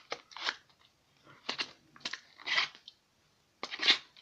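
Packaging crinkling and crunching as a novelty comb is pushed back into its box: several short crackly rustles, the loudest near the end.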